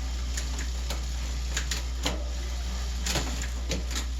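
Bicycle on training rollers: a steady low hum with irregular mechanical clicks and ticks from the bike.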